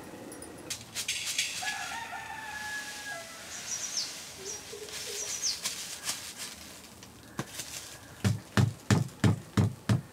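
A rooster crows in the background, with short high bird chirps after it. About three quarters of the way in comes a quick run of about eight loud thumps, roughly three a second.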